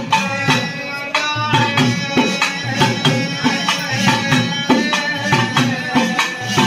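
Pambai and udukkai temple folk drums playing a fast, even beat of about four strokes a second, with a held melody over the drumming.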